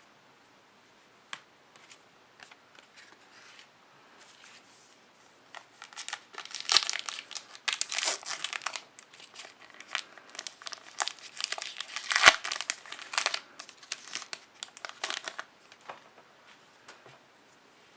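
Foil wrapper of a trading-card pack being torn open and crinkled in the hands, a long run of crackling that starts about five seconds in and dies away a couple of seconds before the end, after a few faint clicks.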